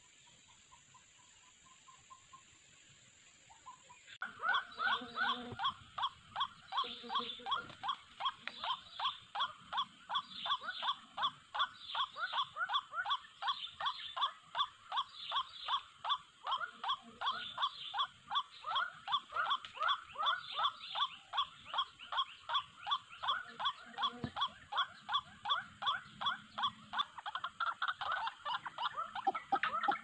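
White-breasted waterhen calling: a continuous string of harsh, rapidly repeated notes, about three a second, that starts about four seconds in after a quiet stretch.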